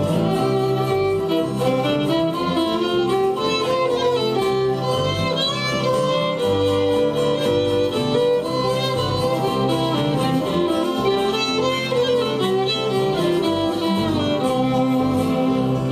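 Folk string band's instrumental break in C: a fiddle plays the melody in sliding phrases over strummed acoustic guitars, with harmonica alongside.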